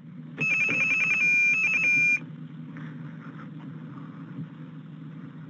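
Telephone line signalling tones: a quick string of short electronic beeps switching between two pitches, then a held beep, lasting nearly two seconds. The steady hum and hiss of the open recorded line carry on after them.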